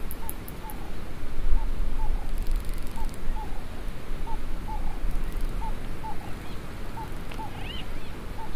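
Outdoor ambience: a steady rushing noise with a low rumble. A bird repeats a short chirp about once or twice a second, and there is a quick bird twitter near the end.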